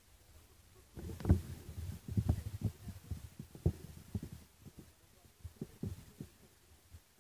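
Irregular low thumps and rumbling on the camera's microphone, starting about a second in, with a few sharper knocks among them.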